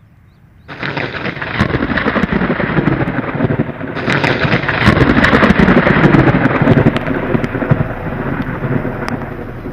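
Thunder rumbling and crackling, with rain. It starts suddenly about a second in, is loudest around the middle, and eases off toward the end.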